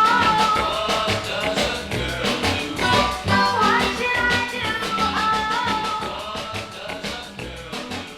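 Early-1960s pop record playing: a female lead vocal over guitar and drums, growing quieter over the last few seconds.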